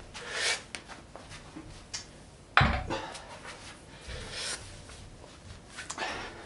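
Rustling and breathy movement sounds from a person moving about, with one sharp, heavy thump about two and a half seconds in.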